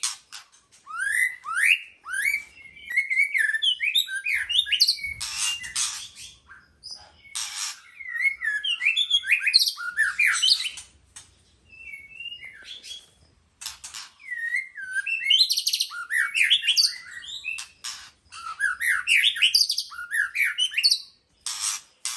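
White-rumped shama singing: phrases of quick whistled notes and rising slurs mixed with harsh raspy notes, separated by short pauses.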